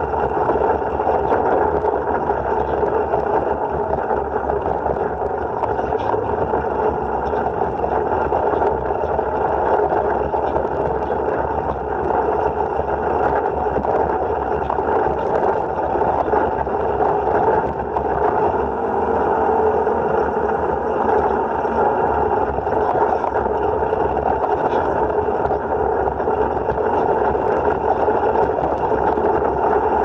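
Side-by-side UTV engine and drivetrain running steadily while cruising at around 25 to 33 mph on a gravel trail, mixed with tyre and wind noise in the open cab.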